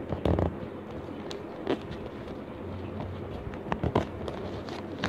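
A sheet of paper being folded and creased by hand: scattered crinkles and light taps, with a louder rustle near the start.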